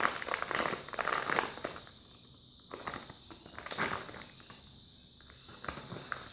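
Crinkling and rustling handling noise as bicarbonate soda is scooped out with a tablespoon, in two spells: one at the start and one in the middle.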